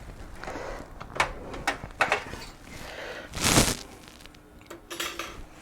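Computer parts being handled in and around a PC case: a few sharp clicks and knocks, then a short scraping slide about three and a half seconds in.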